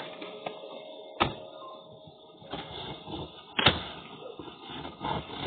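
Two sharp knocks, about a second in and again at about three and a half seconds, the second the louder, over muffled rustling and handling noise.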